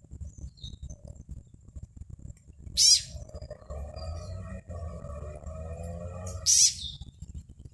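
A frog's distress calls as a snake seizes it: a held, pitched cry lasting about three seconds, broken by two short, loud, shrill calls about a second and about six and a half seconds in, over a low rumble.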